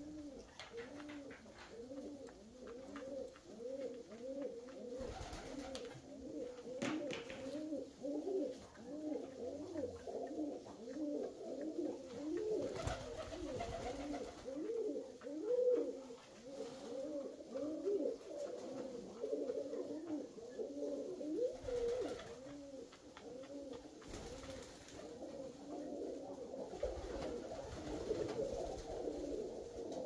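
A flock of Alföldi-Körösi tumbler pigeons cooing, many birds at once, their coos overlapping without a break.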